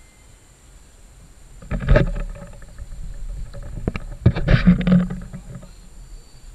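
Wind buffeting and handling knocks on the microphone of a handheld camera on a selfie stick. There are two louder rumbling surges, one about two seconds in and a longer one from just past four seconds.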